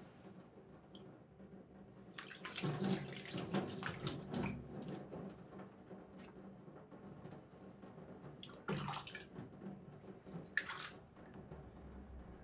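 Water splashing and trickling from a soaked whetstone as it is handled and set on its holder over the sink. The water sounds come in a longer burst about two seconds in and two shorter ones later.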